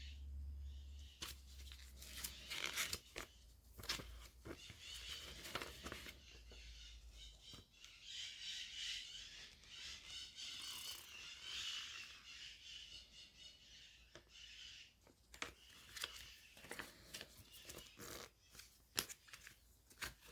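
Faint handling noises from unpacking a tablet: scattered clicks and knocks, with a longer stretch of scratchy rustling or tearing of packaging in the middle, over a low hum during the first several seconds.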